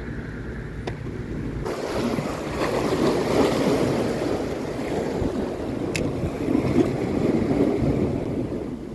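Sea waves washing and breaking over shoreline rocks, mixed with wind buffeting the microphone; the surge swells up about two seconds in and eases near the end. A single sharp click about six seconds in.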